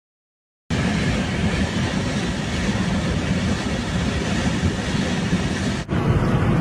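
Steady roar of fast-running floodwater in a swollen river, starting after a moment of silence and cutting abruptly near the end to a similar rush.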